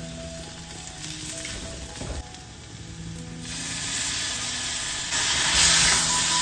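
Spiced onion masala sizzling in a hot kadai while a steel spoon stirs and scrapes it, with a knock of the spoon about two seconds in. Past the halfway point, hot water poured from a kettle hits the pan and the sizzle swells into a loud hiss that is loudest near the end.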